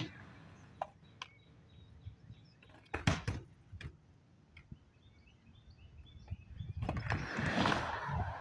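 Skateboard clacks and knocks: a few sharp strikes of the board, the loudest about three seconds in, then the rumble of urethane wheels rolling on concrete that grows louder near the end.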